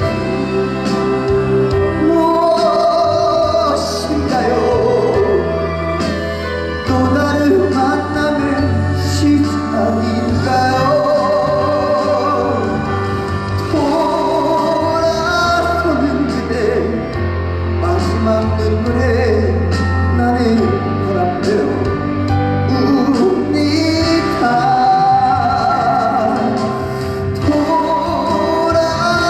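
Trot song playing over a hall's sound system between sung verses: a melodic lead line over a backing track with a steady, heavy bass.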